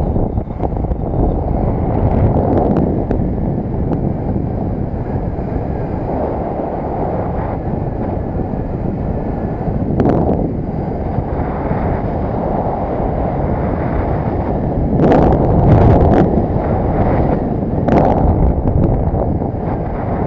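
Wind rushing over the microphone of a camera on a moving underbone moped, a dense low rumble with engine and road noise underneath. Louder gusts hit about halfway through and several more near the end.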